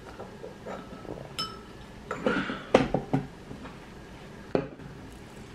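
Chopsticks clicking and clinking against ceramic bowls and plates while eating: scattered light taps, one short ringing clink about a second and a half in, and a busier cluster of knocks around the middle.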